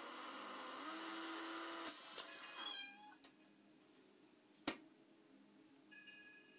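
Talking cat money box, a toy coin bank with a mechanical cat inside, playing its recorded meow: a long, very steady cry lasting about two seconds, then a shorter one near three seconds. A single sharp click follows a little under five seconds in.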